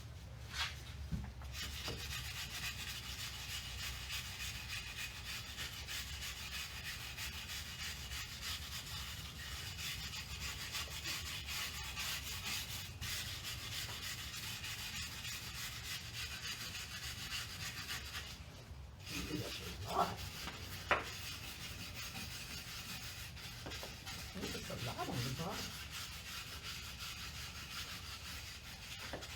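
Steady scratchy rubbing of a brake rotor being scrubbed clean of brake dust by hand, with a short pause about two-thirds of the way through.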